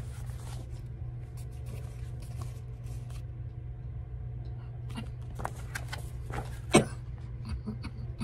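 A paperback coloring book being handled between readings: soft paper rustles and light taps as it is lowered and its pages turned, with one sharp click near the end, over a steady low hum.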